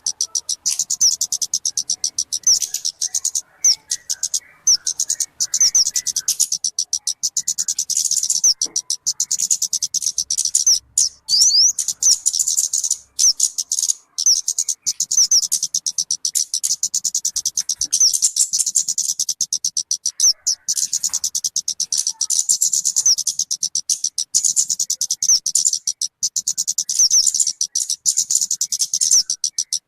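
A small songbird, known in Indonesian bird-keeping as talokan or kemade, giving a rapid, high-pitched chattering song of quickly repeated notes, without let-up apart from a few brief breaks. This is a lure or training call for catching or tutoring caged birds.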